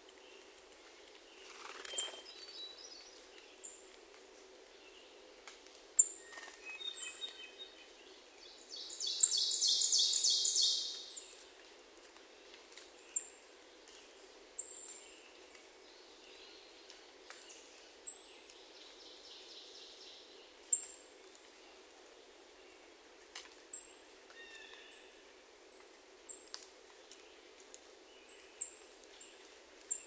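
Several woodland birds singing, hermit thrush among them. Short high chips come every second or two, a loud fast trill runs for about two seconds about nine seconds in, and a few lower, shorter phrases come in between, all over a faint steady background hum.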